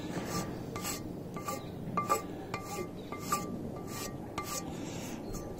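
Long flat hand file rasping back and forth over a cured filler repair on a broken cylinder-block cooling fin. It goes in regular strokes about twice a second, with a short ringing tone at each stroke.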